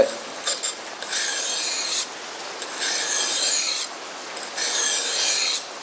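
Becker BK7 knife blade being drawn across a wet combination whetstone: three even rasping strokes of about a second each.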